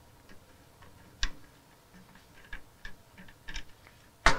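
Light, irregular metallic clicks and ticks of a thin wrench and a Torx bit working on the grid heater's power-transfer bolt and nut, with a sharper click near the end.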